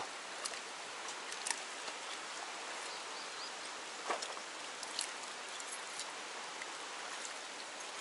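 Steady rush of stream water flowing past the bank, with a few faint clicks scattered through it.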